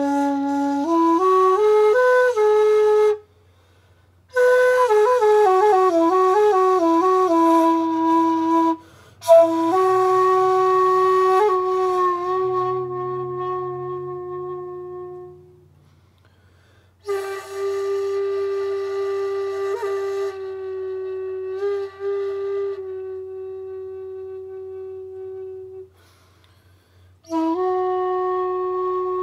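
Shakuhachi bamboo flute played in breathy phrases with short pauses between them. It opens with a rising run of notes, then a quick falling run, then several long held low notes, one fading away.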